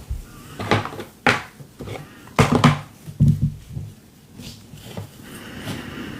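A handful of short knocks and bumps from objects being handled and set down on a work surface, then a soft rustle near the end.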